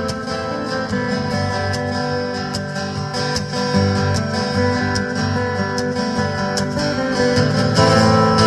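Instrumental music with strummed acoustic guitar over a bass line and a steady beat, with no voice.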